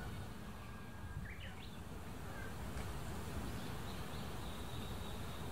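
Faint bird chirps: a few quick rising calls about a second in, over a low outdoor rumble.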